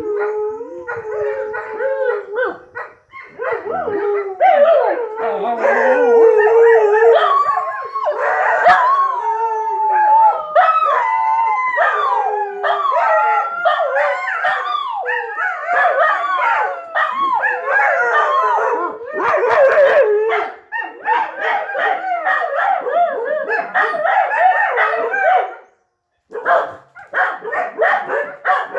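Several dogs howling together, their pitches wavering and overlapping, with yips and barks mixed in. The howling breaks off briefly near the end, then starts again.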